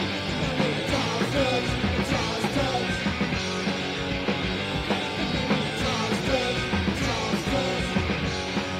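Rock band demo recording playing: guitar over a drum kit, with frequent sharp drum hits.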